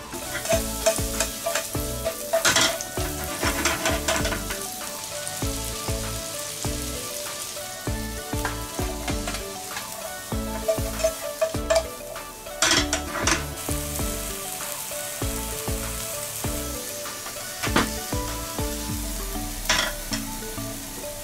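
Sliced onion and shiitake mushrooms sizzling in melted butter in a nonstick frying pan. They are stirred and tossed with metal kitchen tongs, which scrape and click against the pan several times.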